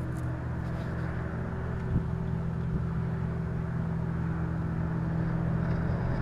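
Steady low industrial hum: several unchanging low tones over a steady rushing noise, which the uploader blames on the ALCOA aluminium plant. A faint knock about two seconds in.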